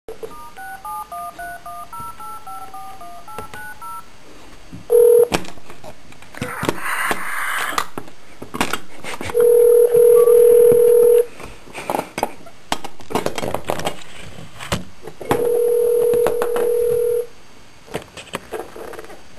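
Telephone keypad tones dialling a number in a quick string of beeps, then the ringback tone of the called line ringing three times: a short first ring, then two rings of about two seconds each. Clicks and crackle on the line between rings.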